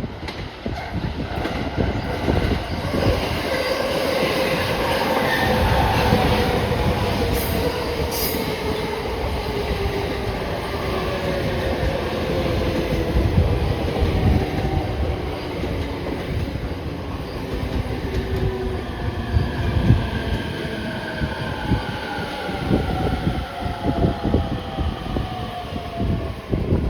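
Electric multiple-unit train running through the station and slowing, its motor whine gliding steadily down in pitch over wheel rumble and rail-joint clatter.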